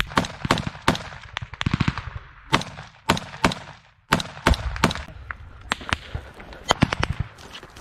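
Small-arms gunfire in a firefight: rifle shots, irregularly spaced, some single and some in quick strings of several, with a short gap about four seconds in.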